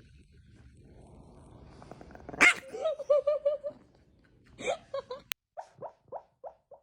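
A dog vocalising: a sharp bark about two and a half seconds in runs into a quick warbling yelp, and a second bark-like call follows near five seconds. After an abrupt cut comes a regular run of short pitched sounds, about three a second.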